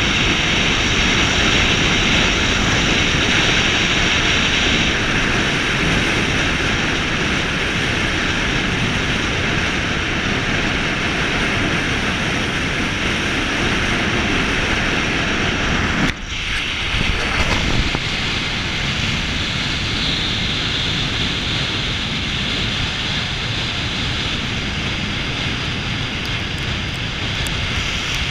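Car driving along a sand beach, heard through a camera mounted on the outside of the body: a steady rush of wind over the microphone with tyre and engine noise underneath. A short dip and a few jolts come about sixteen seconds in.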